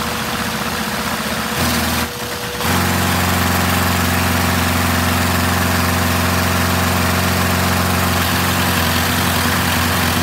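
Lego vacuum-powered inline-four engine running on vacuum-cleaner suction, a steady hiss with a hum. About two and a half seconds in, the sound changes to a louder, lower steady drone that holds until near the end.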